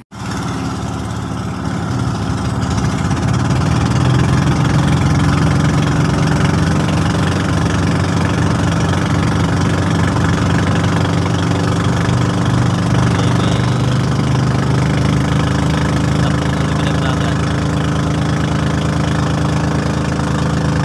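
Engine of a motorized outrigger boat (bangka) running under way with a steady low chugging, growing louder over the first few seconds and then holding even.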